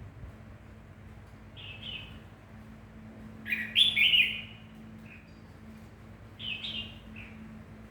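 Pet bird chirping in short, quick clusters of calls, three main bursts with the loudest about halfway through, over a faint steady hum.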